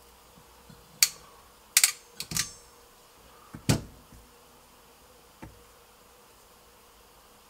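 Crimping pliers clicking and clacking as wire end ferrules are crimped onto the cable cores: a few sharp metallic clicks, one close double, then a duller knock as the pliers are set down, over a faint steady hum.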